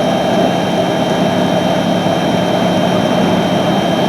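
Strong wind rushing steadily around the vehicle in blizzard gusts, with a low steady hum underneath.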